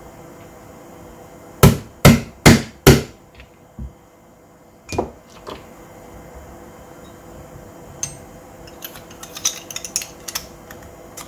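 Four sharp knocks about half a second apart on the tight-fitting parts of a Golden Eagle Hi-Capa 4.3 gel blaster, followed by a few lighter knocks. Near the end comes a run of small clicks and rattles of metal parts.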